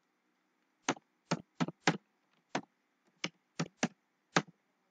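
Typing on a computer keyboard: about nine separate key clicks at an uneven pace.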